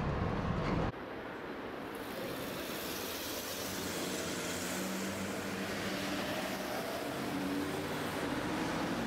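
City street traffic: cars driving through an intersection, a steady wash of tyre and engine noise with faint engine tones coming and going. A heavier low rumble in the first second cuts off abruptly.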